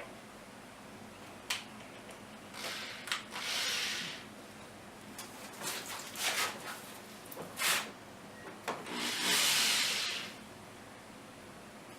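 Wood being worked with a hand tool: a few separate scraping strokes about a second long, with sharp knocks of wood between them.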